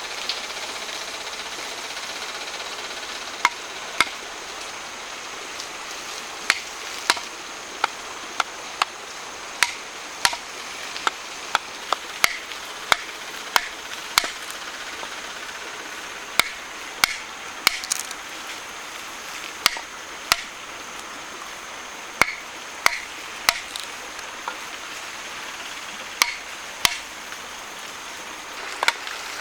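Sharp knocks of a hand tool striking wood, one or two a second in short runs separated by pauses, over a steady background hiss.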